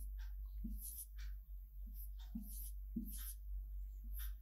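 Marker pen writing on a whiteboard: a series of short, quiet strokes as digits are written one after another.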